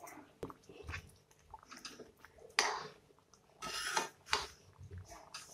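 A spatula stirring broken wheat and dal powder into boiling water in a pan: a series of short, uneven scraping strokes, coming thicker from about halfway in.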